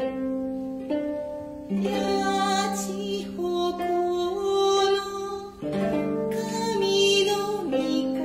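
Traditional Japanese ensemble music: plucked notes from Chikuzen biwa and 17-string koto over long held, bowed kokyu notes, with new phrases struck about two and six seconds in.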